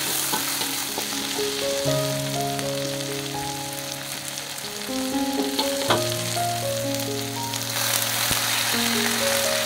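Chopped shallots, garlic, red chilli and tomato sizzling in oil in a wok, stirred with a metal spatula that knocks against the pan a few times. Near the end the sizzle gets louder as wet water spinach is tipped into the hot oil. Soft background music with a slow melody plays underneath.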